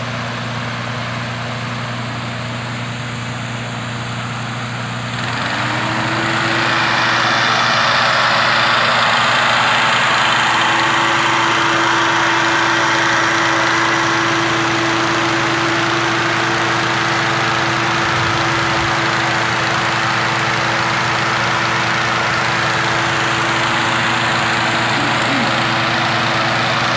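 Hot air balloon inflator fan with its small petrol engine running; about five seconds in the engine is throttled up and the rush of air from the fan grows much louder, then holds steady at full speed. This is the cold-inflation stage, blowing air into the envelope laid out on the ground.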